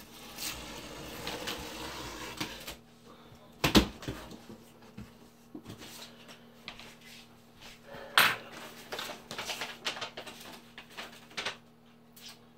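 Large cardboard box being cut open and unpacked: a long scratchy rasp as it is opened, a sharp knock about four seconds in and another about eight seconds in, then crackly rustling of cardboard and paper.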